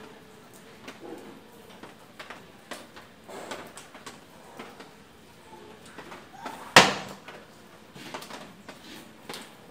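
A checker piece slammed down on a wooden checkers board: one sharp, loud knock about two-thirds of the way in, with scattered lighter clicks and taps of pieces before and after.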